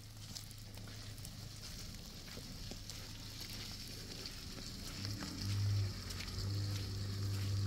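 Pickup truck engine running as it drives along a muddy dirt track, a steady low drone that grows much louder about five seconds in, over a steady high hiss.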